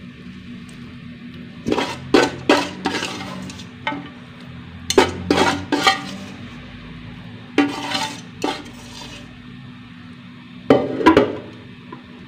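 Metal spoon stirring cassava leaves in coconut milk in a metal wok, clinking and scraping against the pan in four short bursts a few seconds apart.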